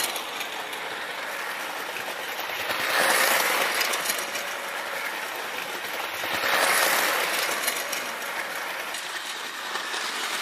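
Vintage electric toy train running around its metal track loop: a steady rattling clatter of wheels and track that swells twice, about three and a half seconds apart, as the train comes past close by.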